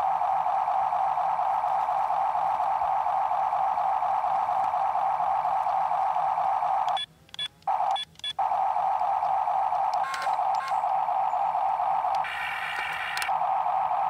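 Electric gear motors of a Huina RC toy excavator whirring steadily. The whir cuts out twice in quick succession about seven to eight seconds in, then changes tone for about a second near the end as the boom lifts.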